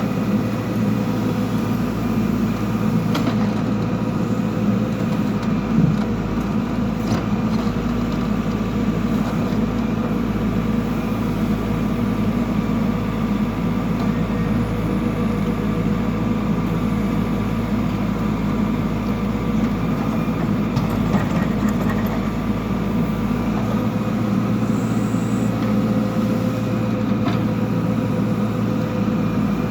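Backhoe loader's diesel engine running at a steady speed, with a few faint knocks.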